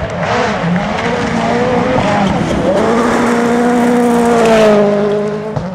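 Ford Fiesta rally car at speed on a gravel stage. The engine pitch rises and falls through the first couple of seconds, then holds one long high-revving pull, with gravel noise underneath.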